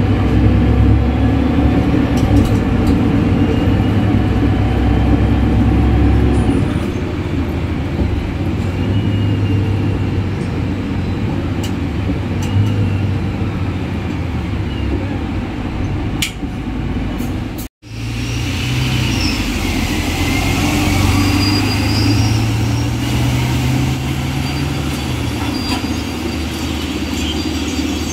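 Single-deck bus with a Voith automatic gearbox driving, heard from inside: engine running with the gearbox's loud whistling, rising and falling with speed. After a sudden cut about two-thirds of the way through, a bus pulls away from the stop, heard from the roadside, its drone rising in pitch as it speeds up.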